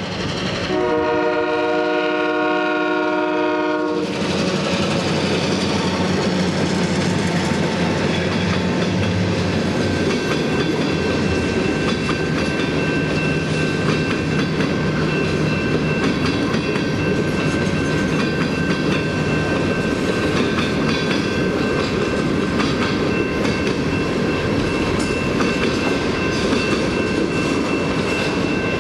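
Freight train horn sounds one long chord about a second in and cuts off sharply about four seconds in. The freight cars then roll past with a steady rumble and wheel clatter.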